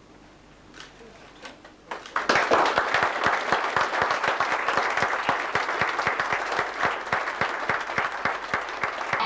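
A few scattered claps, then a small audience breaks into applause about two seconds in, and it carries on steadily.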